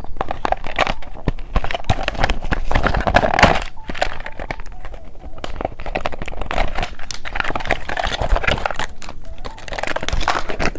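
Plastic candy packaging crinkling and crackling as a bear-shaped cookie egg is handled and opened, with many small irregular clicks throughout.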